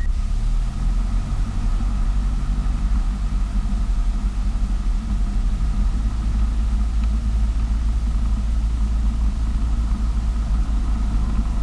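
Cessna 172S's four-cylinder Lycoming piston engine running steadily at low taxi power, a deep even drone with the mixture leaned for taxi.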